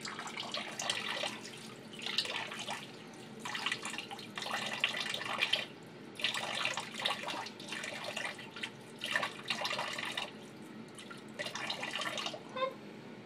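Water running from a tap into a sink, the splashing hiss coming and going in uneven surges.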